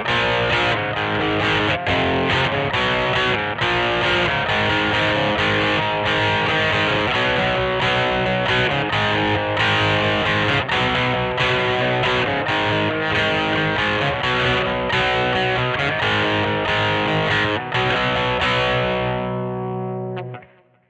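Squier Vintage Modified Jaguar electric guitar played through heavy distortion: rhythmic chords struck again and again, then a last chord held that rings and fades out near the end.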